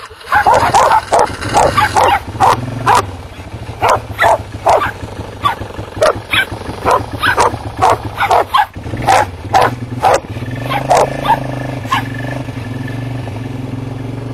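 Pitbull–rottweiler mix dog barking over and over, about two barks a second, until the barks stop near the end. A steady low engine-like hum comes in as the barking dies away.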